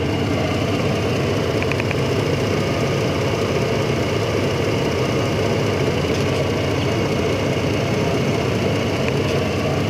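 Chevy S-10 pickup engine idling steadily, with a few faint clicks just before two seconds in.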